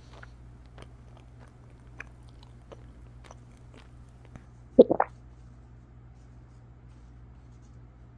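Paper cutouts being handled on a table: faint scattered taps and rustles, then a quick cluster of three or four crisp crunches about five seconds in as the paper cutlery works at the paper lettuce.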